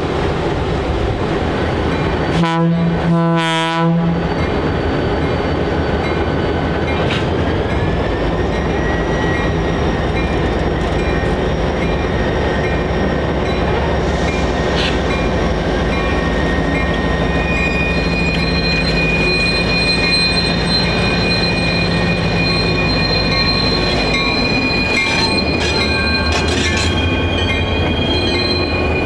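Diesel locomotive horn sounding two short blasts about two seconds in. Then a steady diesel rumble as the train moves, with thin high wheel squeal that grows stronger in the second half.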